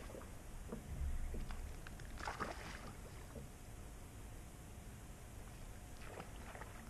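Faint sounds of casting a light fishing rig from a boat deck: a low thump about a second in, a short rush of noise about two seconds in as the lure goes out and lands, and another brief rustle near the end.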